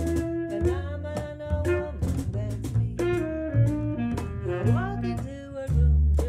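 Jazz song: a plucked double bass playing low notes, cajón hits, and a woman singing a melodic line over them.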